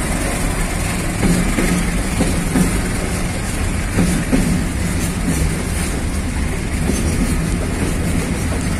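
Container freight train's flat wagons rolling past close by: a steady rumble of wheels on rail with a few knocks from the wheels.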